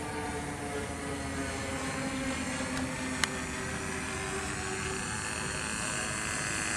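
Engine of a radio-controlled Hangar 9 Piper Cub model plane in flight, a steady drone that rises in pitch and grows louder toward the end as the plane comes in low. A single brief click about three seconds in.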